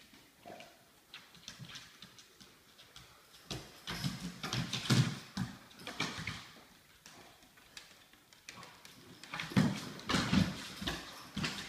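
Dogs' paws running and scrabbling on a hard floor: quick patters of clicks and thuds that come in bursts, loudest about five seconds in and again near the end.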